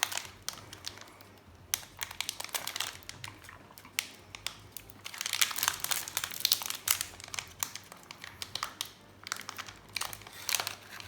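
Foil wrapper of a trading-card booster pack crinkling in irregular bursts of sharp crackles as it is worked open from the top by hand, without fingernails.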